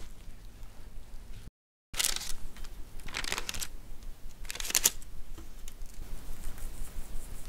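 Squares of baking paper being laid one by one on a metal baking tray: three short papery swishes, about two, three and a half and five seconds in, then fainter rustling.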